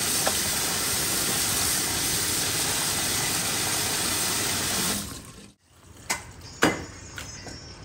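Tap water pouring and splashing onto a raw chicken as it is rinsed by hand on a tiled floor. The water stops abruptly, then a meat cleaver strikes twice on a wooden chopping block about half a second apart, the second strike louder.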